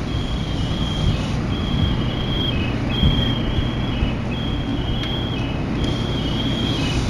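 Steady low rumble with a high, thin electronic beep that keeps switching on and off, each beep about half a second long.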